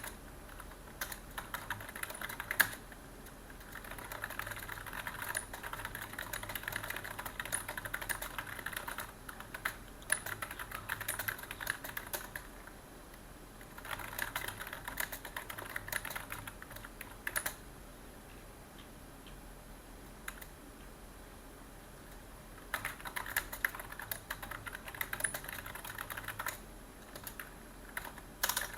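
Typing on a computer keyboard in bursts of a few seconds with short pauses between them, the longest pause a little past the middle.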